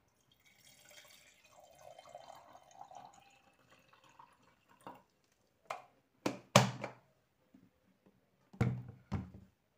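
Hot water poured from a plastic electric kettle into a small glass jug, a faint splashing trickle for about four seconds. Then a series of knocks as the kettle is handled and set down on the table, the loudest about six and a half seconds in and two more near the end.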